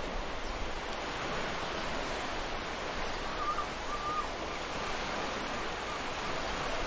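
Sea waves breaking and washing up a sandy beach, a steady rush of surf. A little past halfway a bird gives two short calls over it.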